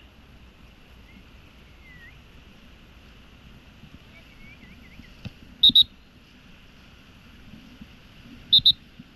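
Outdoor riverside ambience with a steady high insect drone and a few faint bird chirps. Twice, about three seconds apart, comes a loud pair of sharp, high-pitched calls.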